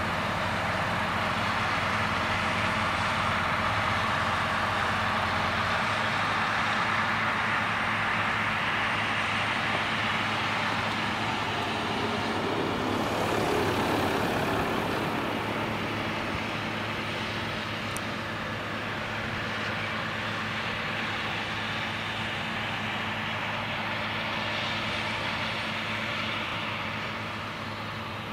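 Claas Lexion 560 combine harvester threshing soybeans: its engine and threshing machinery running with a steady drone and low hum, growing a little quieter near the end as it moves away.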